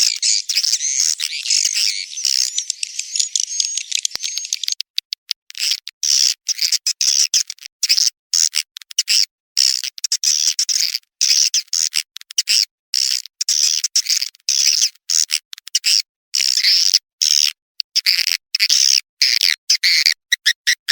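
Swiftlet lure call recording: dense, high twittering chirps of swiftlets, the kind played from a swiftlet house to draw the birds in to roost. Continuous for the first five seconds, then broken into rapid short bursts with silent gaps between.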